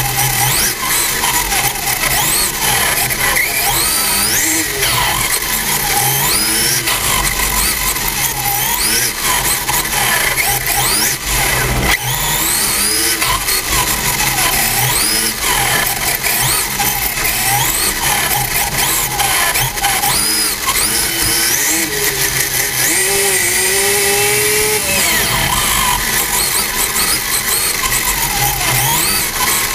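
RC car's motor whining, its pitch sweeping up and down again and again as the car speeds up and slows through the corners, over a constant rushing noise.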